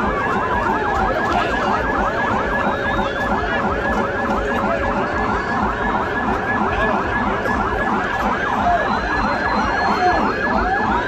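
Several motorcade escort sirens sounding at once: many fast, overlapping yelping sweeps, with a slower wailing sweep near the start and another near the end.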